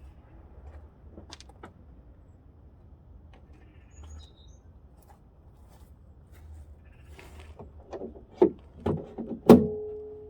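Scattered light clicks, then a quick series of loud knocks near the end, the last and loudest leaving a short ringing tone like struck metal: tools or parts being knocked about while working on the car.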